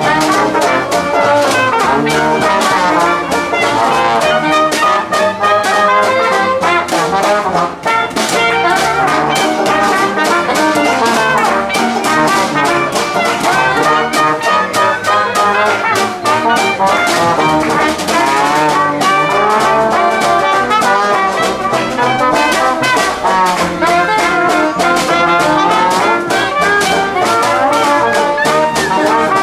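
Brass band playing a lively tune, horns over a steady beat.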